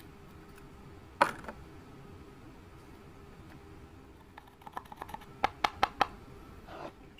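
Sharp clicks and taps: one loud click about a second in, then a quick run of clicks between about four and six seconds in, over a faint steady hum.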